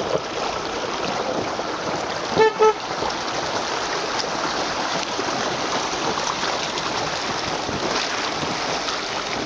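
Water rushing and splashing against the side of a vehicle as it drives through a river ford. About two and a half seconds in, a car horn gives two short toots.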